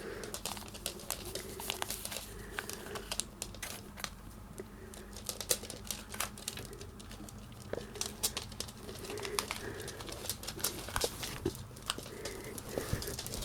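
Miniature dachshund puppy chewing a treat: many small, irregular crunchy clicks, with a faint low hum that comes and goes.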